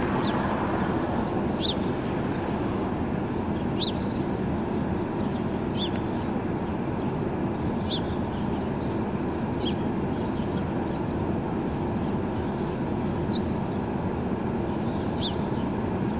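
Steady urban traffic rumble, with a small bird chirping briefly about every two seconds over it.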